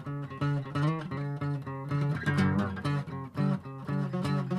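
Acoustic guitar played solo as an instrumental break in a country-style song, a run of picked notes and strums.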